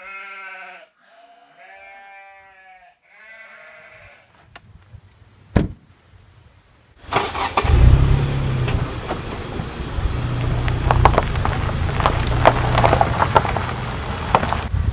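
Three bleats, each just under a second long, then a single sharp knock. From about seven seconds in, strong wind buffets the microphone with a low rumble and rustling.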